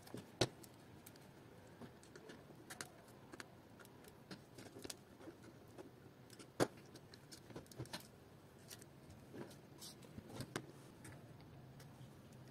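Scattered small clicks and taps of parts being handled and fitted on an acrylic robot chassis, with a sharper knock about half a second in and another near the middle.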